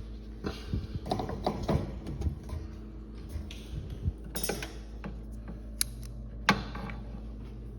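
Hand tools and small parts clicking and rattling during wiring work, with several sharp clicks, over a steady low hum.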